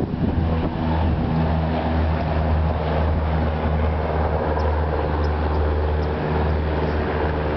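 A steady low mechanical drone from an engine or motor running at a constant speed, with a strong low hum and even overtones that stay unchanged throughout.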